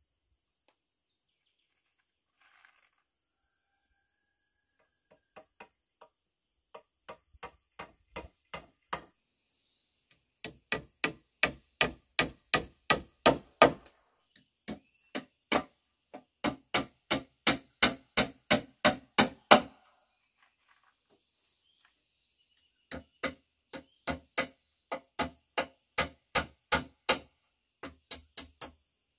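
Hammer blows on bamboo roof poles, in runs of about two to three sharp strikes a second with short pauses between runs.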